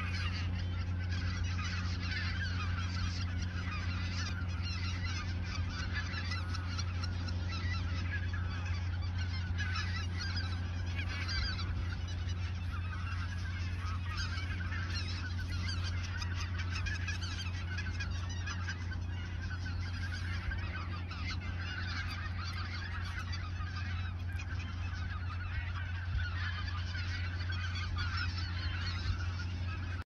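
A large flock of greater white-fronted geese calling continuously, many overlapping honks with no pause, over a steady low hum.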